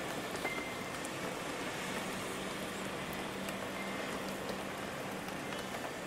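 Steady rain, an even hiss with a patter of drops, with a few faint wind-chime tones ringing now and then.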